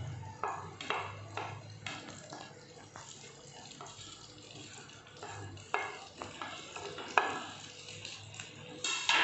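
Paneer cubes pushed off a plate with a wooden spatula, dropping into a nonstick frying pan of melted butter: a run of irregular light knocks and scrapes, two sharper ones in the second half, over a faint sizzle of butter.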